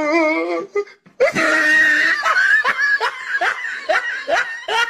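A person laughing hard: a wavering, high laugh in the first second, then after a brief gap a long run of rapid laughs, about two or three a second.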